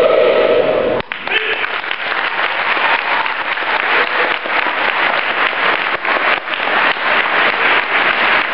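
Audience applauding, a dense steady clapping from a large crowd. About a second in, a loud held chant-like sound cuts off abruptly before the applause takes over.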